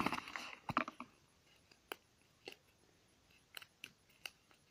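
Light handling sounds of a folded paper slip being picked up and handled: a short rustle at the start, then scattered single clicks and ticks, several close together near the end.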